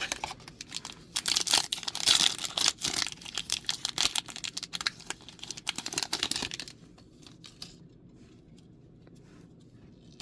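Foil Magic: The Gathering booster pack wrapper being torn open and crinkled in the hands. The crackling stops about seven seconds in.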